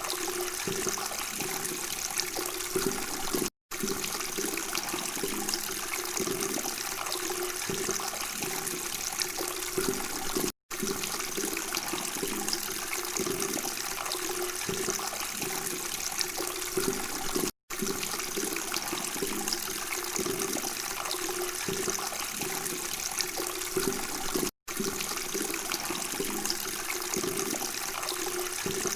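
Water running and babbling steadily, a continuous splashing trickle. It cuts out completely for a split second four times, about every seven seconds.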